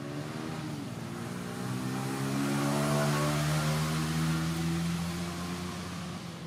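A motor vehicle's engine passing by: a steady engine hum that grows louder to a peak about three seconds in, then fades away.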